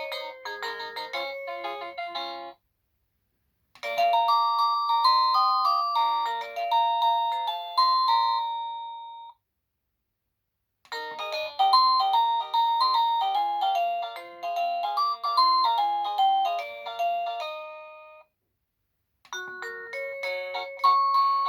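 EMASTIFF wireless doorbell playing its polyphonic electronic chime tunes one after another. One tune ends about two and a half seconds in, two more play in full with a second or so of silence between them, and a fourth begins near the end.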